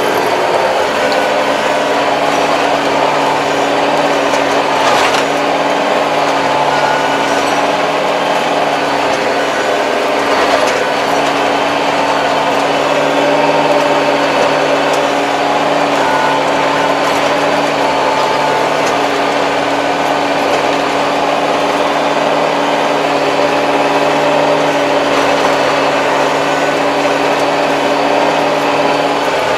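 Kubota 75-horsepower tractor's diesel engine running steadily under load while pulling a 2.4 m rotary tiller, heard from inside the cab as a constant drone with a couple of faint clicks.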